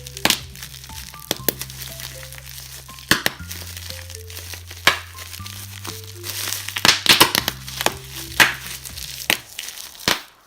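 Bubble wrap crinkling and crackling as it is pulled off slime pots, in irregular sharp crackles that are busiest and loudest a few seconds from the end. Background music with a steady bass and a simple melody plays underneath.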